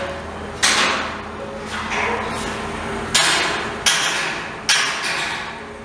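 About five sharp knocks at uneven intervals, each dying away over about half a second, over a steady low hum.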